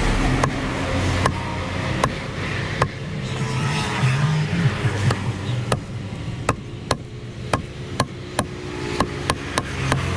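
Heavy knife chopping through an eel onto a wooden chopping block: sharp knocks about once a second at first, coming faster, two or three a second, near the end. A low engine drone of road traffic runs underneath.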